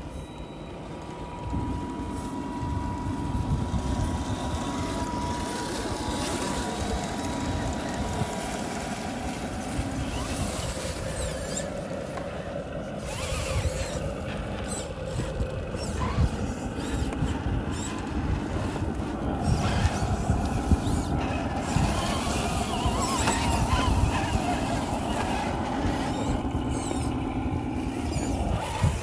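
1/10-scale RC crawlers' electric motors and gearboxes whining at low speed as the trucks creep over loose rocks and gravel, the pitch shifting as they pull and stop, with stones crunching under the tyres and a steady low rumble underneath.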